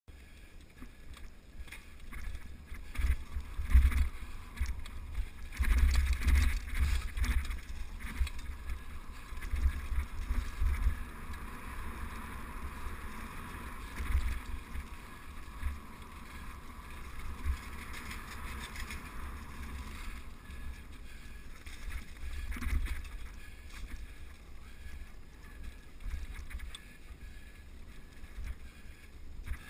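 Mountain bike riding over a leaf-covered dirt singletrack, heard from a camera mounted on the bike. The tyres roll over dry leaves and dirt, with irregular knocks and rumble as the bike jolts over the rough trail and wind on the microphone. A steadier hiss runs through the middle stretch.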